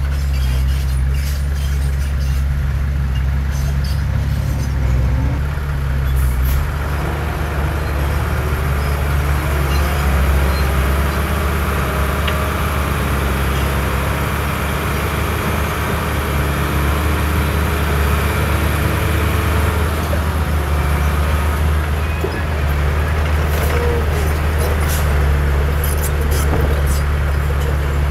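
Heavy diesel earth-moving machinery running steadily, with a higher pitched whine coming in about seven seconds in and fading out about twenty seconds in.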